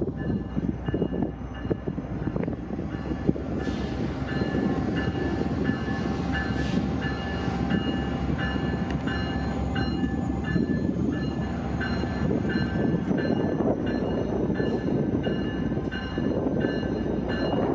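Ex-Amtrak EMD F40PH diesel locomotive rolling slowly toward the listener with its two-stroke V16 engine rumbling, growing a little louder as it nears. A bell rings steadily on top, about two strokes a second.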